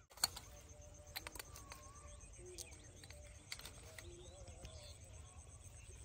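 Quiet outdoor ambience: faint bird calls over a low steady rumble, with a few sharp clicks, the loudest just after the start and others about a second in and halfway through.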